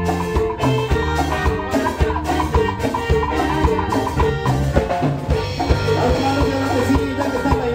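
A band's instrumental passage of a tropical/cumbia medley: drums keeping a steady beat about twice a second under a bass line and a keyboard melody.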